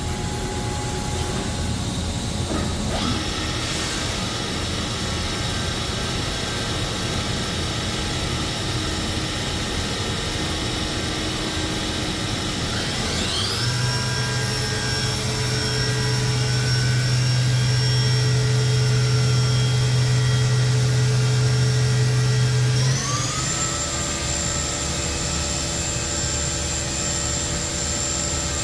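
Haas VF-12 CNC vertical machining center running with a steady, high whine, its spindle stepping up in speed twice: the pitch glides up about 13 seconds in and again about 23 seconds in. A strong low hum runs between the two steps.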